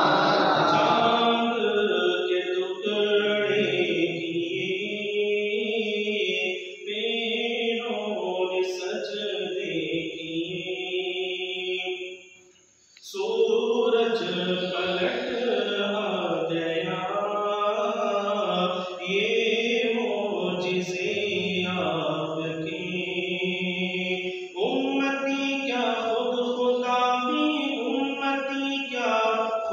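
A man reciting an Urdu Salat-o-Salam, a devotional salutation to the Prophet, in a slow melodic chant with long held notes and no instruments, pausing briefly for breath near the middle.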